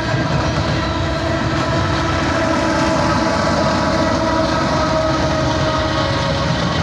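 Empty coal cars of a long freight train rolling past close by: a loud, steady rumble of wheels on rail with steady ringing tones held above it.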